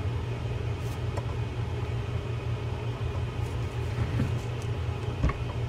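A steady low hum, with a few faint clicks of a screwdriver turning a screw into the crank handle of a Penn 12/0 Senator trolling reel.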